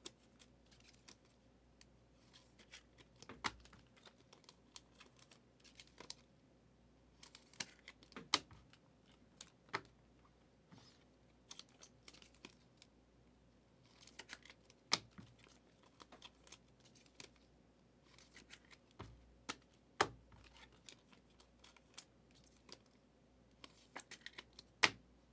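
Trading cards being handled, shuffled and set down on a table: scattered faint clicks and taps of card stock at irregular intervals, with a few sharper ones.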